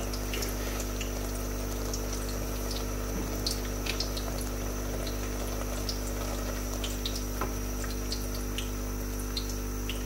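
Tamarind water boiling in a steel saucepan as it reduces into sweet chutney, bubbling with scattered small pops while a wooden spatula stirs it. A steady low hum runs underneath.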